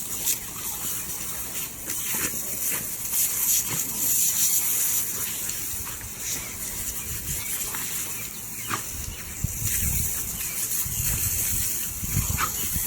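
Lawn sprinkler spraying water with a steady hiss that swells and fades. Low rumbles come in over the last few seconds.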